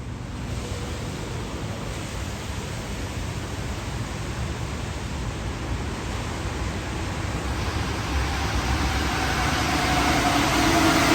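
Steady hiss of rain with a rubber-tyred metro train approaching, its running noise growing louder through the clip, and a rising motor whine coming in over the last few seconds.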